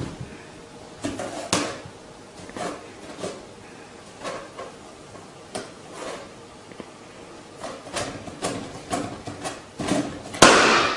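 Irregular knocks and clatters, a few each second, with a louder, noisier burst of clattering near the end.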